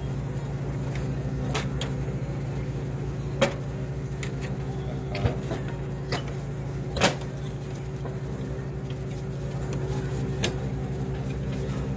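A handful of sharp clicks and knocks from tools and metal parts being handled as a two-stroke snowblower is reassembled, the loudest about seven seconds in, over a steady low hum.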